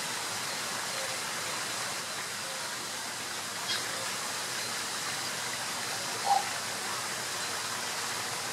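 Steady rushing noise of running water, with a faint high chirp a little under four seconds in and a short, louder note about six seconds in.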